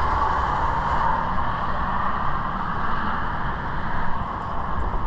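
Steady rush of highway traffic, tyre noise and engine rumble from vehicles passing on the interstate through the gorge.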